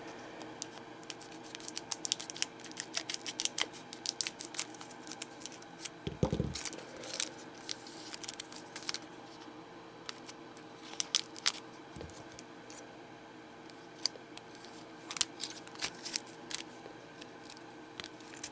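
Scissors snipping through a shiny trading-card booster pack wrapper, with the wrapper crinkling as it is handled: many short clicks and crackles in clusters, and a soft thump about six seconds in.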